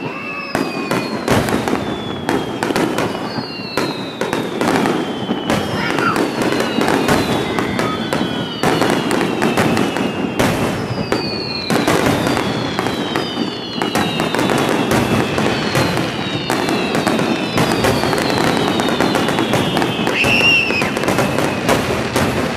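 Fireworks display: a dense, continuous run of aerial shell bursts and crackling, with high whistles falling in pitch every second or two.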